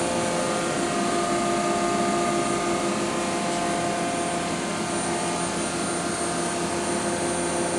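Mazak VCN 410A-II vertical machining center powered up and idling: a steady mechanical hum with several steady tones over an even noise, with no change.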